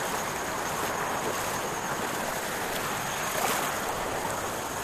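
Fast-flowing floodwater rushing past in a steady, unbroken wash of noise.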